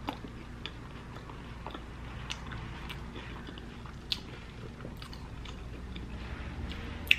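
Close-miked chewing of hot-Cheeto-coated fried potato fries: quiet mouth sounds with scattered sharp, crisp crunches at irregular intervals, the sharpest near the end.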